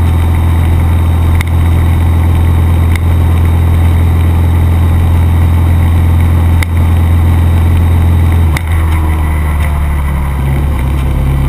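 600 cc motorcycle engine running at steady low revs, with a few short clicks; the engine note shifts slightly after a click about eight and a half seconds in.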